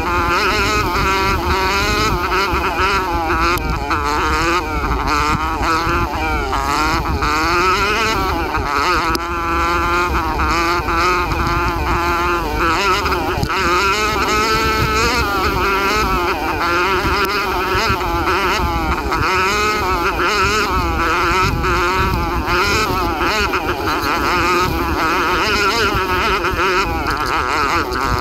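A 125cc four-stroke dirt bike engine running hard, its revs rising and falling constantly.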